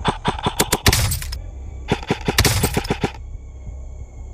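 Two bursts of rapid airsoft rifle fire, each about a second long with a short pause between, sharp cracks at roughly seven or eight shots a second.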